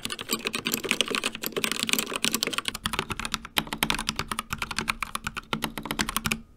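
Fast, continuous typing on a CZC Dwarf mechanical keyboard with linear Kailh Red switches, a dense run of key clicks that stops abruptly near the end.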